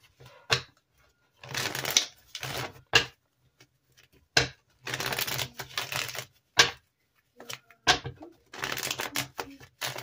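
A tarot deck being shuffled by hand: several short bursts of rapid card riffling, with sharp single card taps between them.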